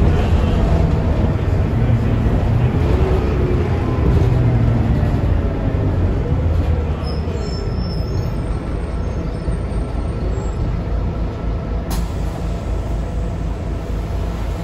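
Scania K280UB city bus's rear-mounted five-cylinder diesel running as the bus drives, heard from inside the passenger cabin: a steady low rumble with faint whining tones that rise and fall as the speed changes. It eases off slightly about halfway through, and a single sharp click sounds near the end.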